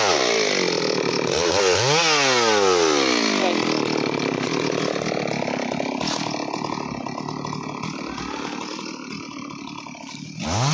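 Stihl MS 382 two-stroke chainsaw cutting through a teak log, its engine pitch rising and falling twice as the throttle is worked in the first few seconds. It then settles into a steadier, rougher running that fades gradually, with a sharp rise in pitch again at the very end.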